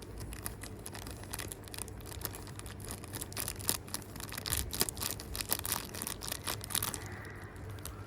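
Plastic packaging crinkling and crackling as it is handled, a rapid, irregular run of crackles that dies away near the end.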